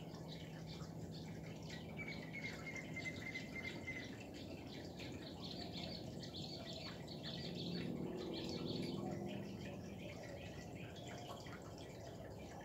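Water bubbling out of the top of a sphere fountain and running down its surface in a steady patter of drips and trickles, with a faint bird chirp now and then.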